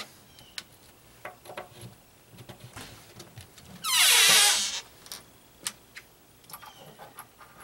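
A hand sweeping grit and dust off a wooden deck board: small clicks and light scrapes, with one loud rushing swipe about four seconds in.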